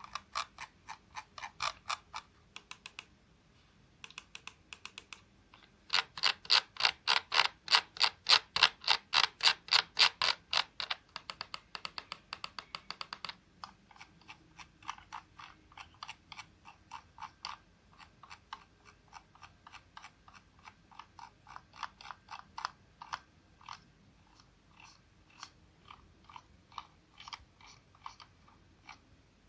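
Razer gaming mouse buttons clicked over and over in runs: a loud, fast run of about four clicks a second in the middle, then a long stretch of quieter clicks.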